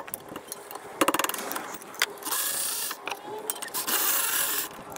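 A cordless electric ratchet runs in two short bursts, backing out the rear brake caliper mount bolts. Before that, about a second in, comes a quick run of ratchet clicks.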